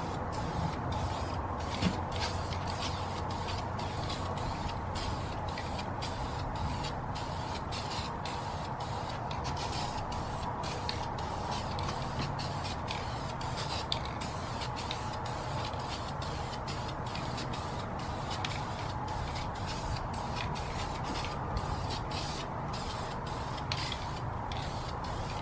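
Aerosol spray can of automotive clear coat hissing as a second, heavier coat is sprayed onto an aluminium wheel. The hiss runs steadily, with frequent brief breaks in its higher part.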